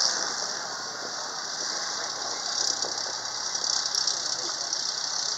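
Tracked armoured vehicle running across the grass, its engine a faint low hum under the light rattle of its tracks, with a steady high hiss over everything.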